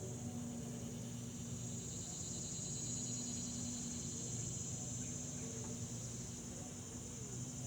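Insects trilling steadily in a high, even chorus, over a faint low steady hum.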